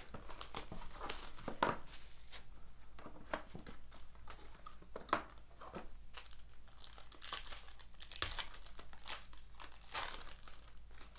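Plastic wrapping on a baseball card box and pack being torn open and crinkled in quick, irregular crackles.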